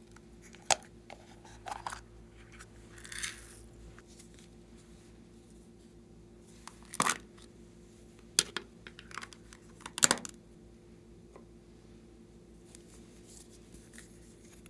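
Small plastic containers and packaging handled and opened by hand: a few sharp plastic clicks and snaps and short tearing, rustling noises, loudest about seven and ten seconds in, over a faint steady hum.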